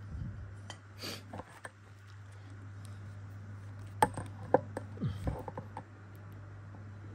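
Handling noise: a few light clicks and sharp knocks as a digital multimeter and its test leads are picked up and handled against the metal compression drivers, over a steady low hum.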